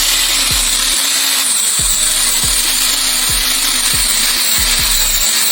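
A loud, steady hissing whir with no break, over background music with a deep, repeating beat.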